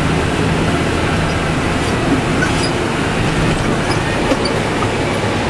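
Valtra T190 tractor engine running steadily under load with its Kuhn disc mowers cutting grass, heard from inside the cab as an even hum and rumble.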